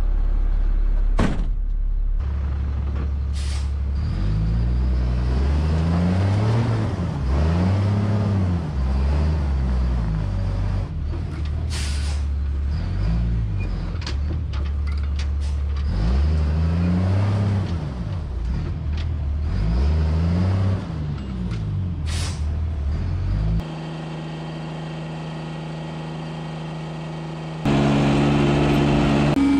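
Diesel dump truck engine revving up and falling back again and again as the stuck truck tries to pull out of soft ground, with several short, sharp air hisses from its air brake system. Over the last few seconds this gives way to a steady hum.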